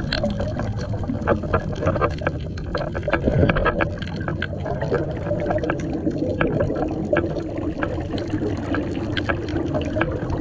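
Underwater ambience through a submerged camera: a steady low rumble of water with many scattered sharp clicks and crackles.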